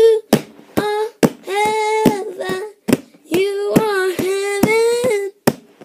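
A child singing long wordless notes in a wavering melody, with sharp clicks between the phrases.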